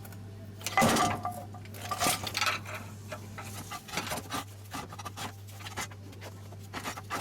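Metal clinks and knocks of tools and parts being handled, loudest about a second in, then irregular lighter clinks, over a steady low hum.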